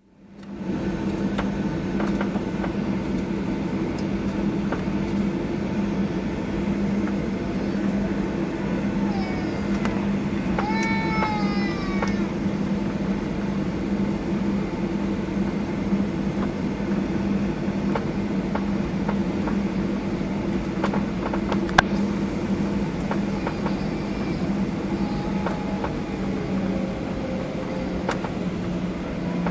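Steady hum inside a Boeing 737-800 cabin, a drone with two low tones. About ten seconds in, a short high wavering cry with falling pitch rises above it, and a single sharp click comes a little past the twenty-second mark.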